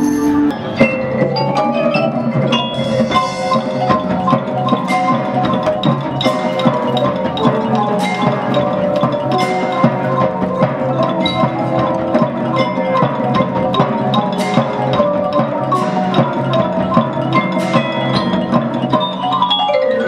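Children's percussion band playing: marimbas, xylophones and glockenspiels carry a melody, with sharp strikes coming at a fairly regular beat.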